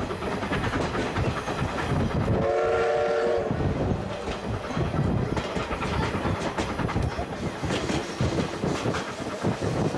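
Train ride inside an old passenger coach hauled by a C11 steam locomotive: the coach rolls along steadily with wheels clicking over the rail joints. About two and a half seconds in, the locomotive's whistle sounds once for about a second, a chord of several tones.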